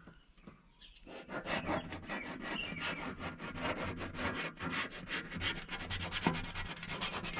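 Fast, steady scraping strokes, several a second, starting about a second in: frost being scraped off a table top.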